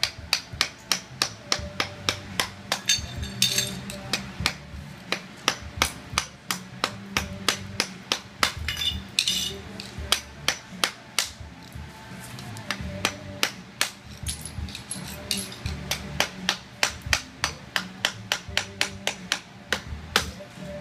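Hammer tapping a chisel to chip ceramic tile and mortar off a window sill: sharp metallic strikes, about three a second, in runs broken by brief pauses.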